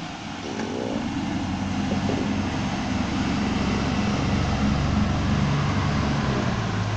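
A passing vehicle: a low engine hum that swells over several seconds and then begins to ease off.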